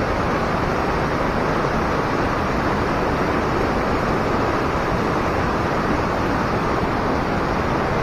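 A swollen, fast-flowing mountain river rushing steadily and loudly: the stream is in flood and rising, too high to cross safely.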